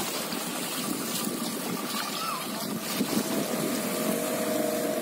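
Water washing on a shallow beach, then, about three seconds in, a motorboat engine comes up with a steady tone as the boat starts towing an inflatable ride.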